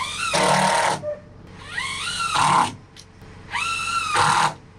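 A dog barking in three long, harsh calls, each starting with a rising pitch.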